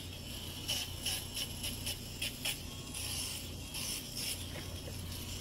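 Cordless electric foot file spinning a sanding pad against the heel: a steady low motor hum with an irregular scratchy rasping as the pad grinds off dry callused skin.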